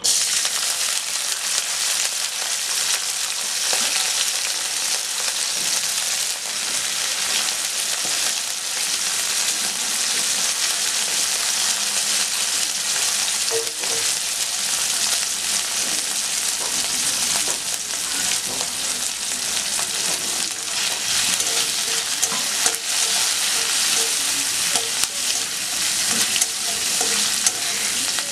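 Sliced garlic sizzling in hot oil in a metal karahi. The sizzle starts suddenly as the garlic is tipped in and keeps up a steady hiss, with a metal spatula stirring it near the end.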